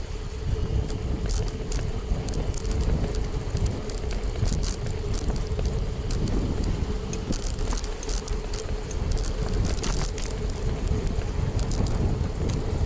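Riding a bicycle, heard from a camera mounted on the bike: a low rumble of wind and road with a steady hum, and frequent small rattles and clicks as the bike jolts over the pavement.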